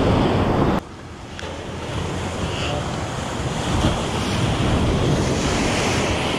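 Shore-break waves breaking and washing over rocks, with wind buffeting the microphone. The noise drops suddenly about a second in, then builds again.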